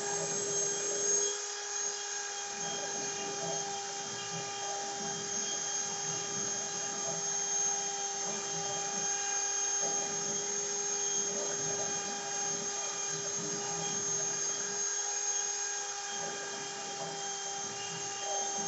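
CNC router running, its spindle giving a steady whine made of several fixed tones, with a rougher, shifting noise beneath it.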